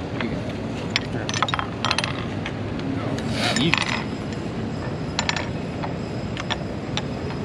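Plastic chess pieces clacking on a board on a wooden table as they are knocked over, gathered and set down: scattered sharp clicks, with a quick run of rattling clinks about three and a half seconds in, over a steady outdoor background hum.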